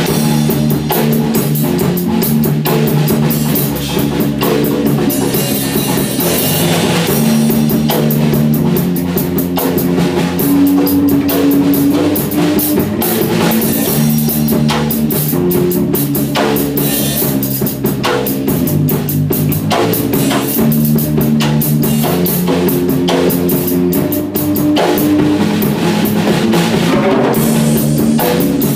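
Electric bass guitar and drum kit playing an instrumental rock jam together: held bass notes that change every second or so over a busy beat with frequent cymbal and drum hits.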